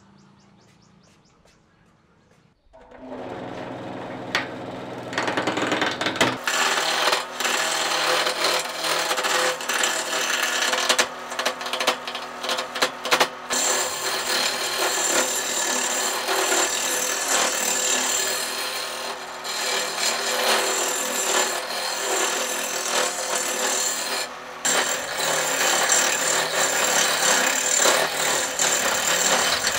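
Wood lathe starting up about three seconds in, its motor humming, then a turning tool cutting into the spinning wooden bat blank with a loud, dense scraping and many small ticks.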